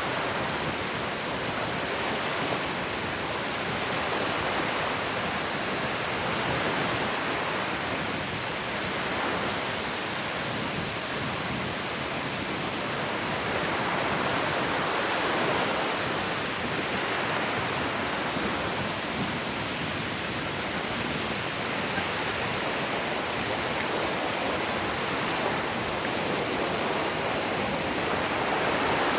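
Ocean waves washing onto a sandy beach: a steady hiss of surf that swells and eases gently every few seconds.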